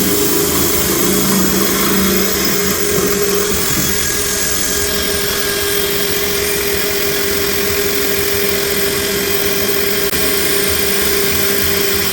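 Power drill running steadily with a dry diamond core bit grinding through porcelain, a steady hum over a gritty grinding noise.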